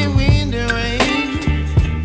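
Background music: an R&B/soul-style song with a sung vocal line, a heavy bass and a steady drum beat.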